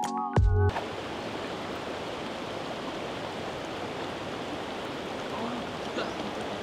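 An electronic music cue with mallet tones cuts off within the first second, leaving the steady rush of a shallow stream flowing over rocks and riffles.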